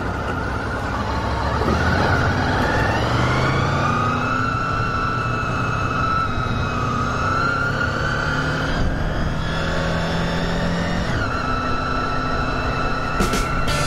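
Honda V4 motorcycle engine running under way, its pitch climbing as it revs up about two seconds in, then holding fairly steady before dropping about eleven seconds in. A few sharp clicks come near the end.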